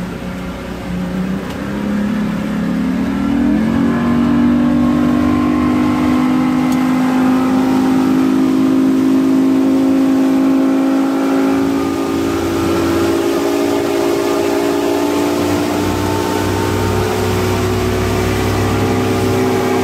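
Boat outboard engine throttling up, its pitch rising over about two seconds, then running at a steady cruising speed, with wind noise.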